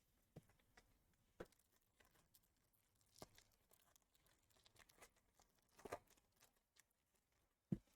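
Near silence with a few faint, scattered clicks and soft rustles of baseball cards being handled and flipped through, the last click near the end the loudest.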